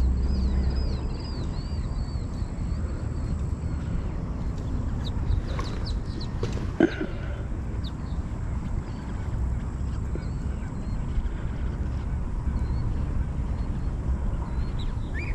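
Small birds chirping over a steady rumble of wind on the microphone: a quick run of high chirps in the first four seconds, a few scattered calls after, and one short knock about seven seconds in.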